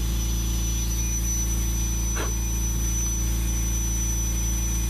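High-speed power carver running steadily without cutting: a thin, high-pitched whine over a low hum.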